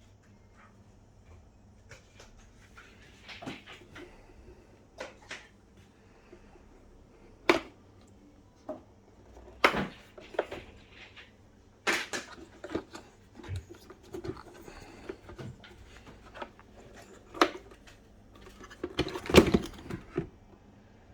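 Parts and packaging of a Fluval 407 canister filter being unpacked and handled: irregular plastic clicks, knocks and rustling, with the loudest clatter about nineteen seconds in.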